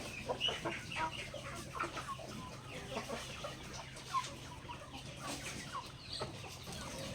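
Backyard chickens clucking, many short calls scattered and overlapping throughout, over a faint steady low hum.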